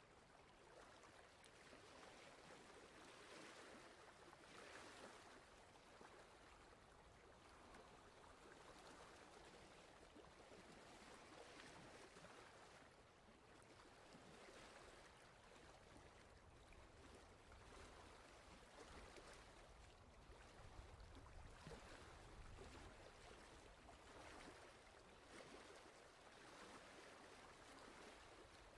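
Faint, steady rushing noise like flowing water, swelling and easing every few seconds.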